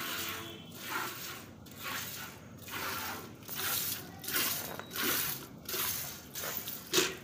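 Cow being milked by hand into a metal bucket: milk squirting into the milk already in the pail, a hissing swish with each squeeze of a teat, about one and a half a second.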